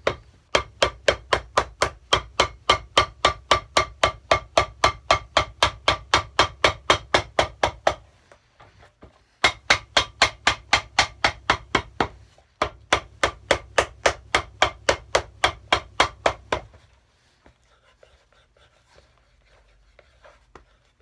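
A cobbler's hammer tapping the glued channel flap of a leather sole flat over the blind stitching: rapid, even taps about four a second, in three runs broken by short pauses, stopping a few seconds before the end.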